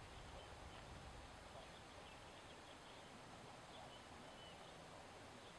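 Near silence: faint outdoor background hiss with a few faint, short, high chirps from distant birds.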